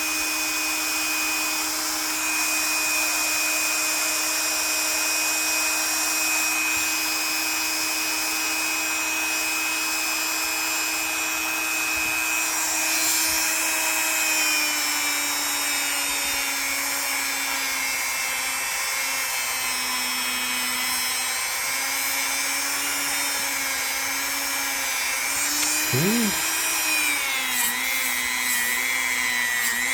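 Small electric power tool running steadily as it cleans and polishes the metal of a small pocketknife blade, its motor pitch dipping a little and wavering from about halfway through as pressure on the blade changes.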